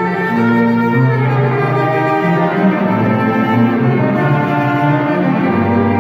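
String ensemble of cellos and violins playing, with bowed notes held and moving from pitch to pitch. The cellos' low line is the strongest.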